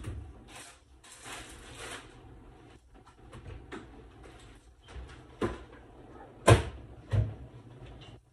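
Kitchen clatter from someone working out of sight: some rustling noise in the first two seconds, then a few sharp knocks like cupboard doors or pots being handled, the loudest about six and a half seconds in.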